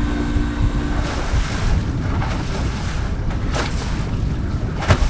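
Wind buffeting the microphone over the rush of choppy water along the hull of a sailing catamaran under way. A low hum fades out about a second in, and two short sharp sounds come about a second apart near the end.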